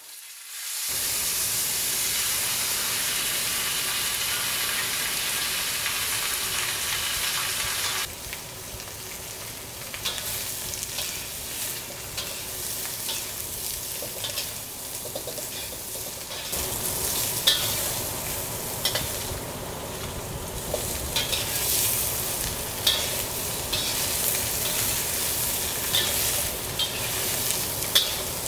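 Chunks of blanched pork belly dropped into hot oil in a wok, sizzling loudly at once, being browned. The sizzle eases about eight seconds in and goes on unevenly while a spatula stirs them, with sharp clicks of the spatula against the wok in the second half.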